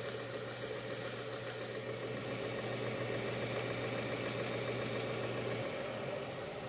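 Belt grinder running with a steady motor hum. For about the first two seconds a small piece is held by hand against the abrasive belt, adding a bright sanding hiss, after which the belt runs on with less hiss.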